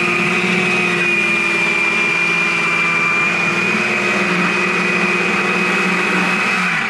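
Carving chainsaw running at steady high revs as it cuts into a log to rough out a carving. The revs start to fall right at the end.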